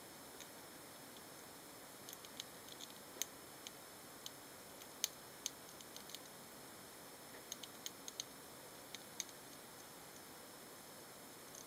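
Roborovski dwarf hamsters cracking and nibbling seeds: irregular, sharp little clicks in loose clusters, over a faint steady hiss.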